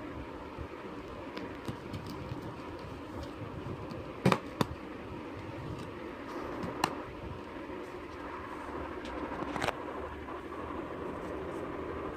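Handling of a laptop box and its packaging: a few sharp clicks and knocks, the loudest two close together about four seconds in, over a steady background hum.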